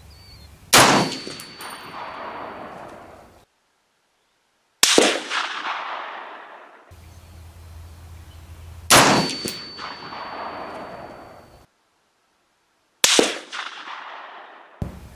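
M1A semi-automatic rifle firing four deliberate shots about four seconds apart, each a loud crack with a long echoing tail. These are part of a five-shot group with 168 grain Sierra MatchKing loads.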